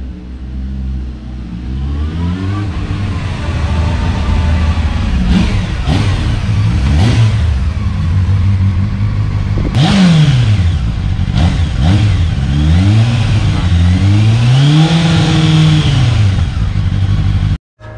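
Honda CBF 600S inline-four engine through its original stock exhaust, ridden at low speed and revved. The pitch rises and falls again and again, with the biggest rev sweeps about halfway through and near the end.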